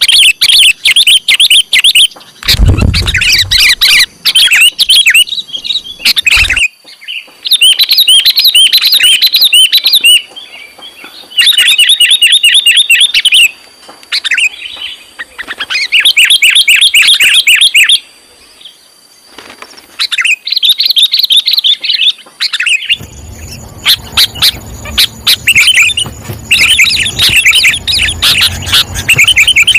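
Sooty-headed bulbul (kutilang) calling loudly in repeated bursts of rapid notes, each burst about two seconds long with short pauses between: a kutilang lure call. A low thump a few seconds in and a low hum over the last few seconds.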